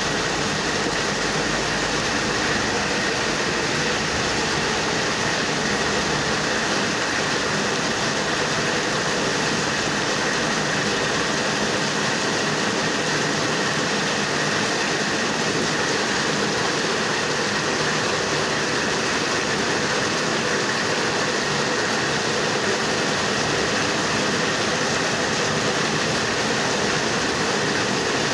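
Heavy rain falling, a steady even rushing noise that holds at one level throughout.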